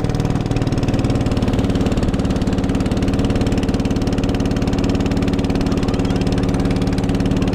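A small fishing boat's engine running steadily under way, a low drone with a fast, even throb.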